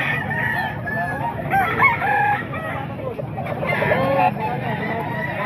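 Roosters crowing and clucking, several at once and overlapping at different pitches: gamecocks such as Kelsos kept for sale.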